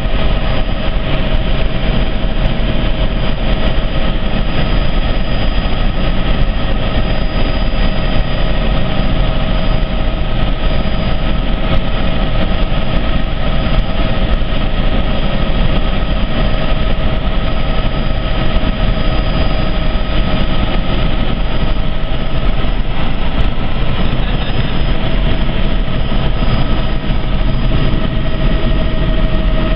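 Helicopter in flight: a loud, steady mix of engine and rotor noise with a constant whine on top.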